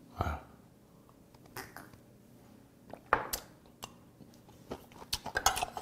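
Close-up eating sounds: a spoonful of steamed shrimp taken into the mouth, with scattered soft clicks and taps from a metal spoon and a small glass shot glass set down on a wooden table. A sharper click comes about three seconds in, and a cluster of small clicks near the end.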